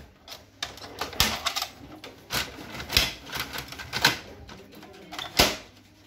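HP LaserJet P2055dn laser printer's engine and rollers starting up on power-on: a series of sharp mechanical clicks and clacks, about half a dozen, unevenly spaced, the loudest near the end.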